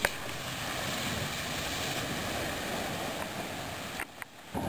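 Pickup truck driving slowly up a gravel driveway: a steady, noisy wash of engine and tyres on gravel. It cuts out briefly about four seconds in.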